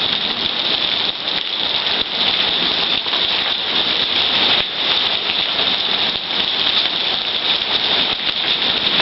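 Heavy rain mixed with hail coming down hard, a dense steady wash of noise dotted with many small hits.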